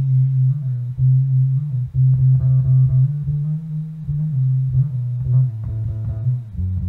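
Recorded music played back through an Audiolab 8000Q preamp and 8000P power amplifier with a modified ES9038Pro DAC: a track carried by a deep bass guitar line, with plucked guitar notes above it.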